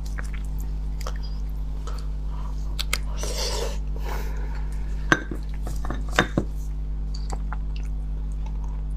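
Close-miked eating sounds from beef bone marrow being picked out and eaten: a wet slurp about three seconds in, then a few sharp clicks from handling the bones and wooden skewer, over a constant low hum.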